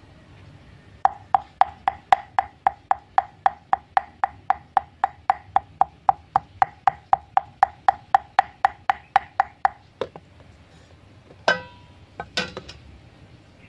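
Cleaver chopping rapidly on a thick round wooden chopping board, mincing a lemongrass, garlic and chilli paste: even knocks about four a second, each with a short ringing note, for about nine seconds. Two louder single knocks follow near the end.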